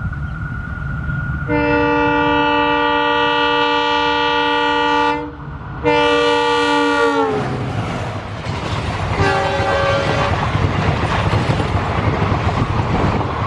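Diesel locomotive's multi-tone air horn blowing a long blast, then a second one that slides down in pitch as it ends, as the locomotive passes. A short, fainter horn note follows, then the steady rumble and clatter of the train's coaches running past on the track.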